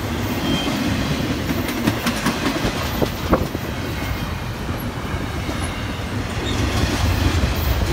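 Double-stack intermodal freight train of container well cars rolling past at close range: a steady rumble of steel wheels on rail, with a few sharp clicks and knocks about two to three and a half seconds in.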